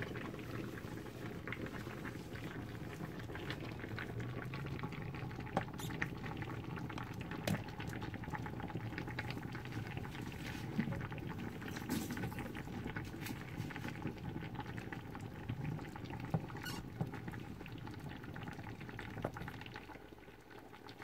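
A pot of vegetable soup with pork ribs bubbling on the stove: a steady simmer of many small pops, which quietens near the end.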